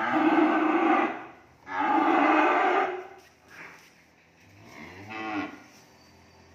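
Cattle mooing: two loud calls of about a second each, one right at the start and one about two seconds in, then a shorter, fainter call about five seconds in.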